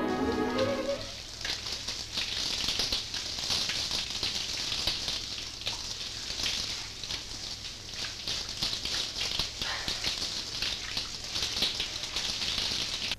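Shower running: a steady hiss of water spraying down, full of fine crackling drops. A string music phrase ends about a second in, just before the spray is heard.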